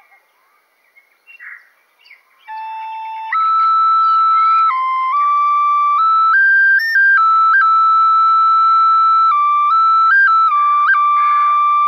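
A flute-like wind instrument playing a slow melody of long held notes that step from one pitch to the next. It comes in about two and a half seconds in, after a pause with only faint short sounds.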